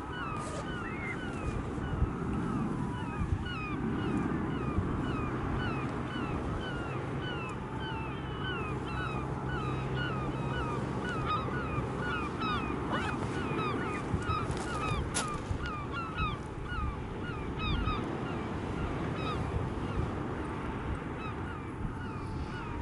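Several gulls calling over and over in short, hooked notes, many calls overlapping, over a steady low rush of wind and surf.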